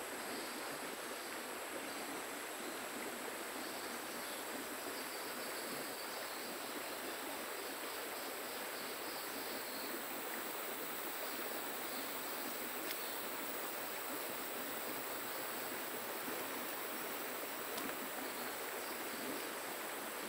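River water flowing: a steady, even rush with no breaks.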